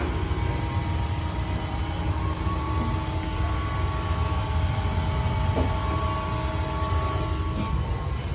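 Steady machinery hum and low rumble with several faint, steady whining tones, and a brief tick near the end.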